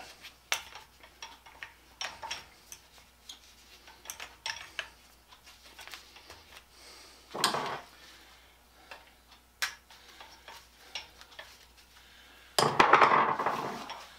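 Miller Falls No. 120 hand-cranked breast drill boring into steel, its gears and crank giving scattered light metallic clicks and clinks. A louder scraping rush comes about seven seconds in, and a longer, louder one near the end.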